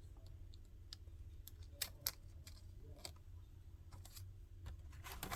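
Faint, scattered plastic clicks and taps as a laptop keyboard is handled and pressed back into place, with two sharper clicks about two seconds in.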